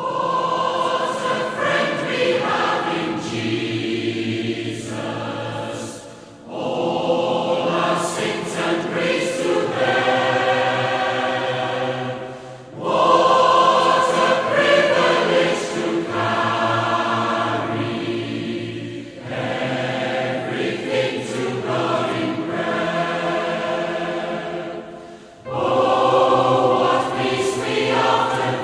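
A choir singing a hymn, line by line, with a short break between phrases about every six seconds.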